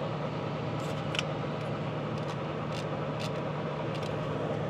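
Steady low machine hum of background equipment, with a few faint clicks of a locking cable tool being worked on the engine's oil screens.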